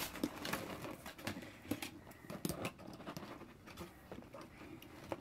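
Hands working a doll loose from its plastic and cardboard box packaging: an irregular run of small scratchy clicks, taps and rustles.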